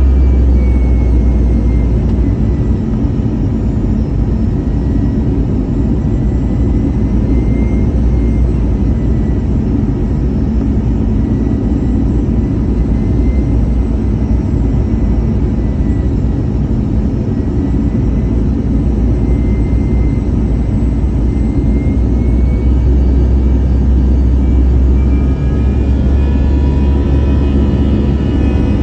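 Airbus A320 jet engines and airflow: a loud, steady rumble with a thin engine whine on top. The whine drops in pitch in the first couple of seconds, holds, then climbs again in the last few seconds as the engine power changes.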